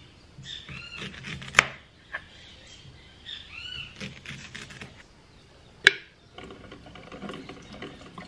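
Glass clinks and knocks as ginger pieces are dropped into a glass coffee-maker carafe and the carafe is handled. The two sharpest clinks come about a second and a half in and about six seconds in. Short high arching animal calls are heard twice in between.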